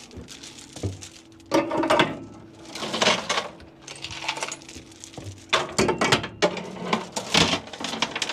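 Steel chains clanking and rattling against metal as they are hung on a flatbed truck's headache rack, in several bursts of metallic clinks.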